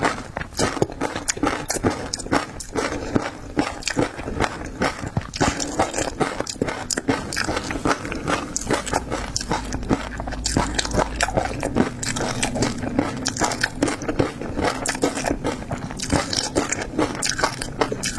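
A person biting and chewing seafood, with a dense, continuous run of wet smacks and crunchy clicks.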